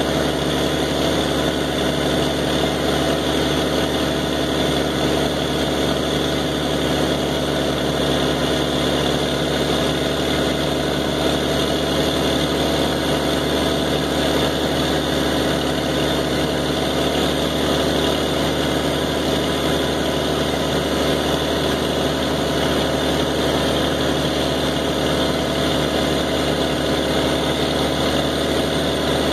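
Engine-driven pump running steadily at an unchanging speed, about half throttle, with an even drone of several steady tones. The engine is working the pump against about 146–150 outlet pressure, held by an automatic throttle controller that is reaching for its maximum pressure.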